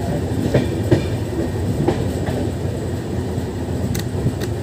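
Express passenger train running along the track, heard from an open coach doorway: a steady rumble of wheels on rails with scattered sharp clacks and knocks as the wheels pass over the track.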